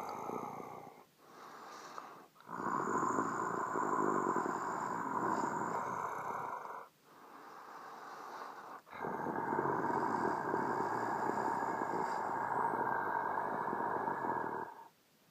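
Creepy, raspy horror-monster breathing: slow, drawn-out rasping breaths, each loud one lasting four to six seconds and led in by a quieter, shorter breath.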